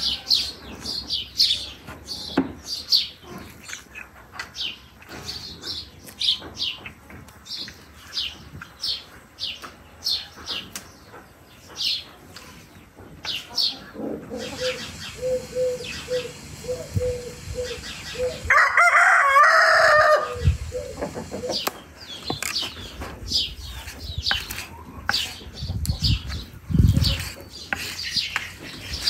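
Small birds chirping over and over, and a rooster crowing once, loudly, about two-thirds of the way through. A few dull low thuds come near the end.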